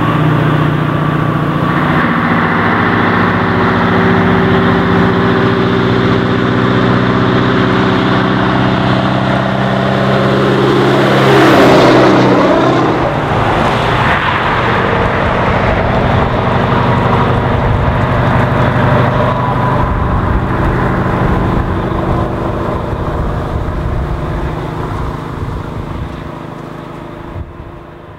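Straight-piped 14-litre V8 of a Scania T142E 420 6x4 truck running under load with a wheel excavator on its lowboy trailer, approaching steadily. It is loudest as it passes about twelve seconds in, dropping in pitch, then fades away as it drives off.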